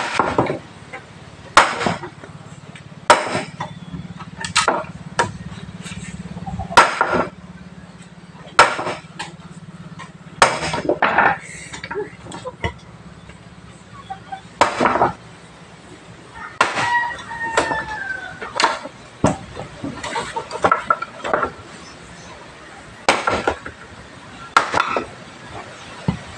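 Wood being chopped by hand with a long blade: sharp chopping strikes at an uneven pace, roughly one every one to two seconds.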